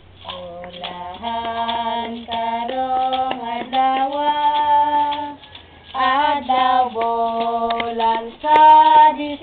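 Carolers singing a Visayan Christmas carol in high voices, in phrases with held notes and a short break about five and a half seconds in. Light, evenly spaced taps keep the beat under the singing.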